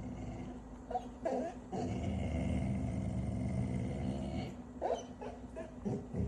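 A dog growling for about three seconds, with short, higher yips before and after the growl.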